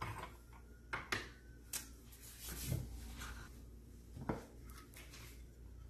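About five light clicks and knocks of kitchen items being handled and set down on a stone countertop, spread through the stretch, the sharpest about a second in.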